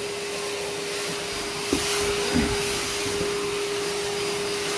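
Wet/dry shop vacuum running with a steady whine and rushing air as it sucks up wet debris, with a couple of brief low knocks about two seconds in.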